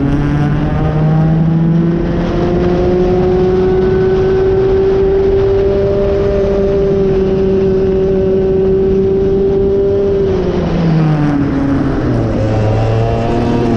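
Racing kart engine heard onboard at full throttle: its pitch climbs, holds high and steady down the straight, then drops sharply about ten seconds in as the kart slows for a corner, and starts climbing again near the end.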